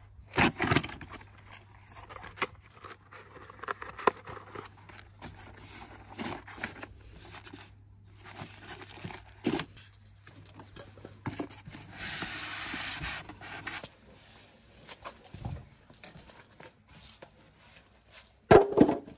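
Cardboard carton and polystyrene foam packing being handled during an unboxing: scraping, rubbing and small knocks as packing pieces are moved and lifted out, with a longer scrape about twelve seconds in and a louder clatter near the end.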